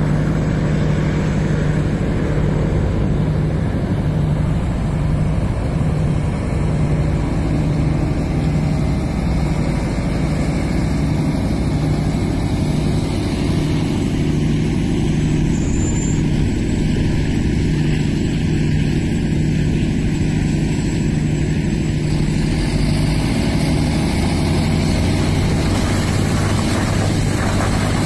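Heavy dump truck's diesel engine running steadily, with a deep hum. A second, lower engine note joins near the end.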